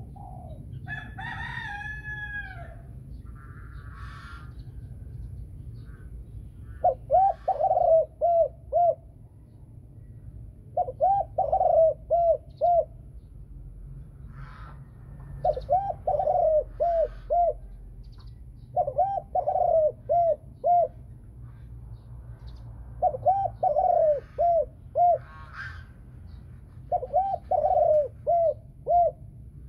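Caged spotted dove cooing in repeated phrases about every four seconds, each a run of five or six notes ending in the two clear tail notes that keepers prize in the deep 'thổ sấm' voice. Near the start there is a brief descending call from another bird, and a low steady hum runs underneath.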